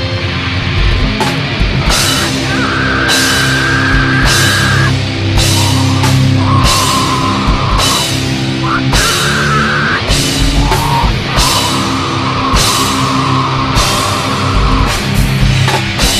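Live rock band playing a song: drum kit with cymbal crashes about once a second under guitars and bass, and high held notes of one to two seconds each that step up and down in pitch.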